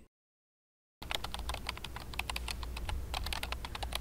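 Silence for about a second, then rapid typing on a laptop keyboard, many quick key clicks over a low hum.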